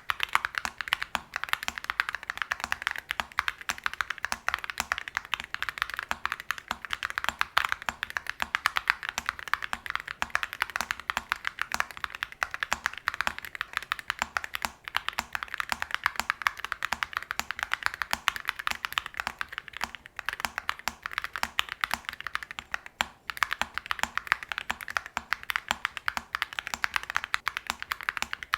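Continuous fast typing on a mechanical keyboard fitted with Awekeys Wild Ice metal keycaps: rapid, dense clacking of keystrokes, with a couple of brief pauses in the second half.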